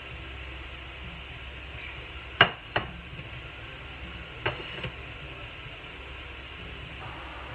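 A few sharp clinks of kitchenware over a steady background hiss: a loud pair about two and a half seconds in and a softer pair about two seconds later. They come from a ceramic plate set down on the countertop and a spatula in a cast-iron skillet.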